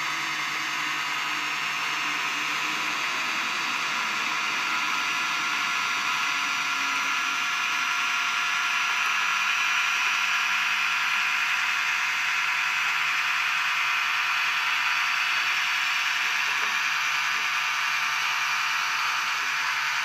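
Small suction fan and stepper motors of a homemade palm-sized desktop robot vacuum running: a steady whirring hiss with faint high whining tones.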